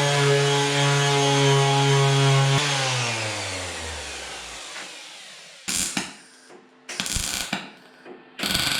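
Angle grinder running at a steady speed, then switched off about two and a half seconds in and winding down in pitch. Three short crackling bursts follow, MIG tack welds on the Land Rover Discovery 1 body panel.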